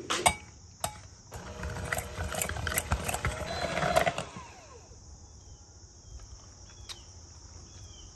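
Electric hand mixer running with its beaters in a stainless steel bowl, beating crumbled feta and tzatziki, for about three seconds before it stops; a few clinks against the bowl come first, before it starts.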